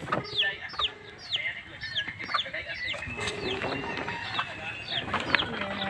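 Chicks peeping: a steady run of short, high peeps, each falling sharply in pitch, about two or three a second.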